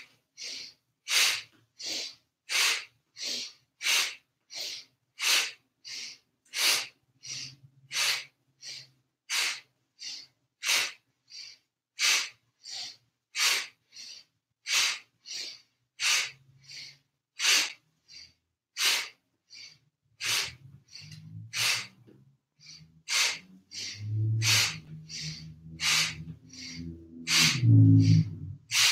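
Quick, forceful yoga breaths through the nose, about three every two seconds in a steady rhythm, as part of a fast breathing exercise. A low hum comes in under the breaths during the second half and is loudest near the end.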